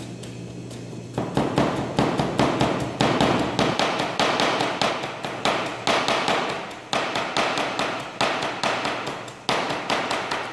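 Kitchen knife rapidly chopping green onions on a plastic cutting board: quick, steady strikes of the blade on the board, mincing the scallions fine. The chopping starts about a second in.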